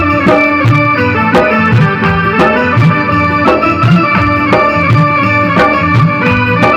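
Instrumental break of a Hindi devotional song: a sustained melody line over a steady, evenly spaced drum beat, with no singing.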